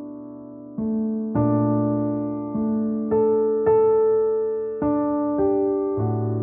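Slow, gentle piano music: a note or chord struck every half second to second, each ringing and fading away.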